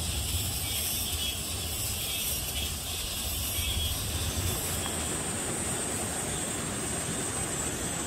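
Steady outdoor background noise: a low rumble with a steady high-pitched hiss above it that grows a little stronger after about five seconds.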